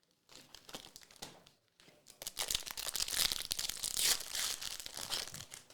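A 2021-22 Marvel Annual trading card pack's wrapper being torn open and crinkled by hand: a few light crackles, then about three and a half seconds of dense crinkling.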